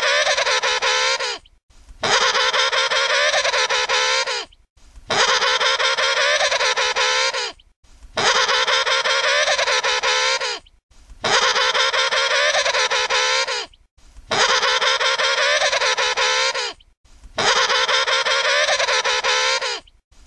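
Emperor penguin trumpeting: the same loud, wavering call about two and a half seconds long, repeating roughly every three seconds with a brief silent gap between, about seven times.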